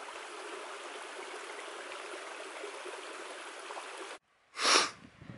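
A small rocky creek running in shallow riffles over stones, a steady rush of water. It cuts off abruptly a little after four seconds in, and a short loud burst of noise follows about half a second later.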